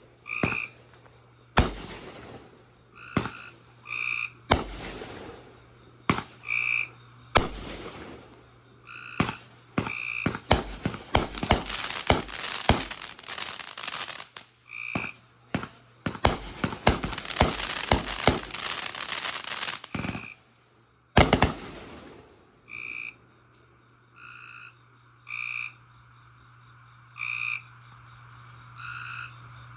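Consumer fireworks going off: single sharp bangs, then two long stretches of dense crackling and a last loud bang about two-thirds of the way through, after which they stop. Frogs croak throughout in short, regular calls, over a steady low hum.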